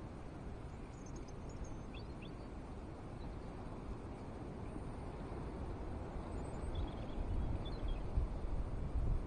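Wind buffeting the microphone, gusting harder near the end, with a few faint, short, high bird chirps.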